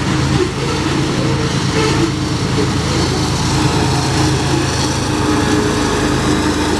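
GE ES44AC diesel locomotive (BNSF 6316) passing close by, its GEVO-12 engine running steadily over the rumble of grain hopper cars on the rails. The engine hum grows stronger about halfway through as the locomotive draws level.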